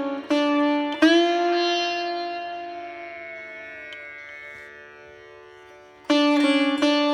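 Instrumental background music on a plucked string instrument over a steady drone. About a second in, one note rings out and slowly fades for several seconds, then quicker plucking resumes near the end.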